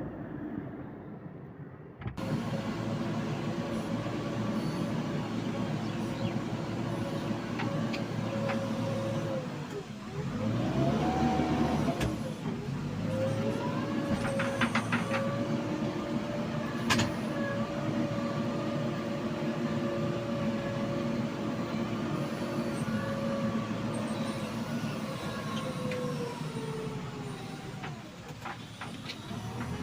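JCB 3DX backhoe loader's diesel engine running steadily under working load. Its pitch dips and climbs back about a third of the way through and sags again near the end. A few sharp metallic clanks come from the machine around the middle.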